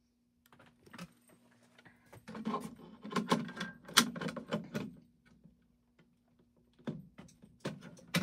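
Clicks, rattles and scraping of the plastic parts of a Fire-Lite BG-12LX fire alarm pull station as it is handled and fitted back together on its wall mount. A quiet start gives way to a busy run of clicks and rattles, a lull, then more near the end.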